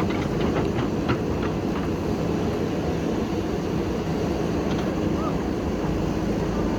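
Diesel engine of a backhoe running steadily under work, with a few light metallic clinks in the first second or two.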